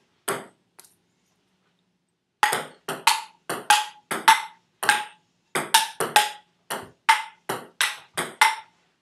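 Table tennis rally: the plastic ball clicking off paddles and bouncing on the table in a fast run of sharp hits, the table bounces with a short ping. Two hits at the start, a pause of about a second and a half, then steady back-and-forth play.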